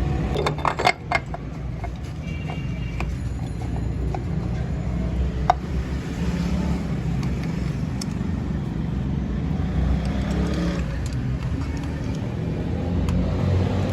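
A few sharp metallic clinks and taps as the motorcycle engine's tappet covers are closed back up after a valve-clearance adjustment, most of them in the first second and one more about five seconds in. A steady low rumble of traffic runs underneath.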